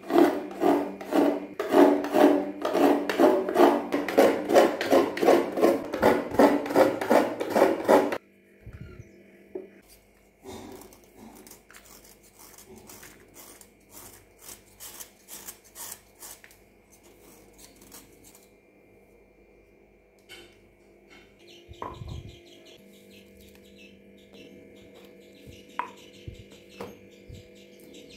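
Loud, rhythmic rasping strokes, about two or three a second, for the first eight seconds. Then softer, quicker scraping as a knife shaves a block of jaggery, followed by a few scattered clicks and knocks.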